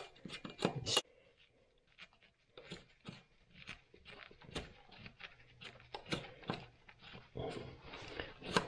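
Faint, irregular clicks and light knocks of hands and tools being handled, busier near the end.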